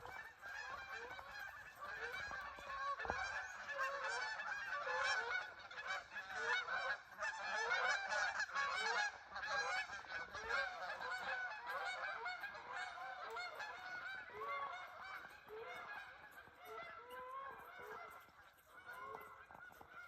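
A large flock of geese honking, many calls overlapping; the calling is thickest and loudest in the middle and thins out and fades near the end.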